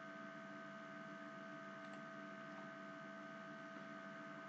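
Faint, steady electrical hum made of several constant tones over a light hiss: the background noise of the recording setup.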